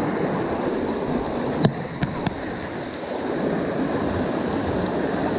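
Shallow rocky stream rushing and splashing over boulders, with three sharp clicks a little under two seconds in.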